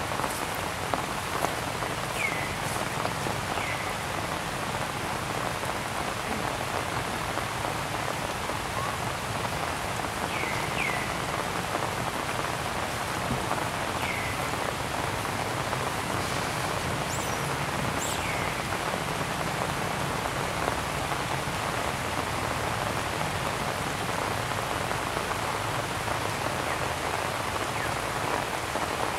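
Steady rain falling, an even hiss of drops without a break. A few short, high chirps that drop in pitch come through now and then in the first part.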